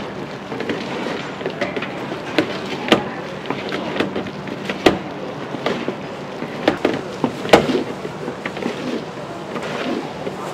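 Wooden paddle scraping and knocking against a large metal pan as small glazed oranda puffs are stirred and tossed, giving irregular sharp knocks over a steady shuffling rustle of the puffs.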